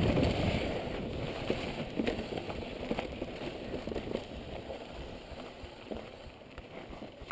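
Mountain bike tyres rolling over a loose dirt and gravel trail, a gritty crunch with scattered small clicks of stones, growing steadily quieter.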